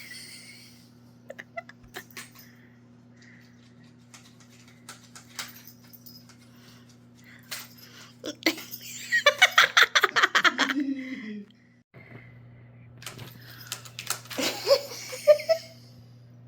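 A person laughing in two bursts: a long run of quick pulses about halfway through that drops in pitch as it ends, and a shorter one near the end. A steady low hum and a few faint clicks lie underneath.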